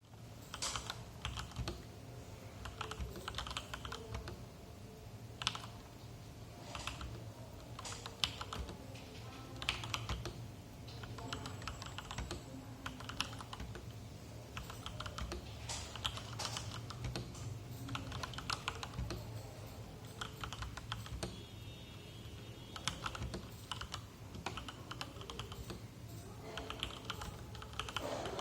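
Typing on a 96-key mechanical keyboard with stock Gateron Yellow linear switches on an aluminium plate, in a bottom-mount Lego case: an irregular run of keystroke clacks, some strikes louder than the rest, over a low steady hum.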